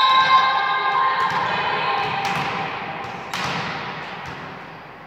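Young girls' voices holding a long cheer that fades away, then two sharp thuds of a volleyball bounced on the hall floor a second apart, typical of a server bouncing the ball before serving.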